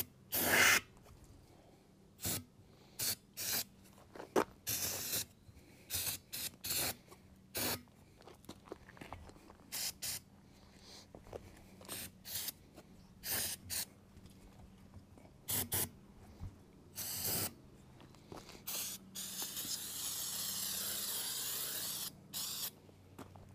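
Repeated short hisses of an aerosol spray can and a compressed-air tire inflator being worked around a trailer tire's bead, one burst every second or so. Near the end comes a steadier hiss lasting about three seconds.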